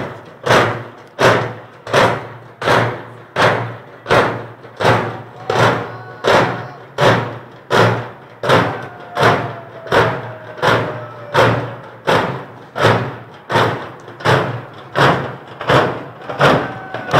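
Heavy knocks struck in steady unison, about one and a half a second in an even rhythm, each ringing and echoing briefly: the rhythmic pounding of the 'Klopfn'/'Tampern' custom.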